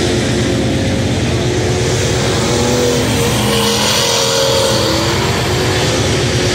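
Dirt-track street stock race cars' engines running hard as they lap the oval, the engine pitch shifting as cars pass and go through the turns.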